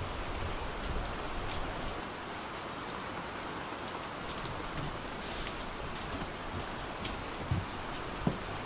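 Steady rain falling, with many scattered individual drops ticking close by and a soft low knock near the end.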